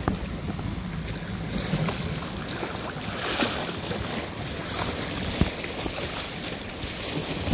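Wind rushing over the microphone, with river water lapping and splashing against the rocks at the edge. A couple of sharp clicks stand out, one just after the start and one about five seconds in.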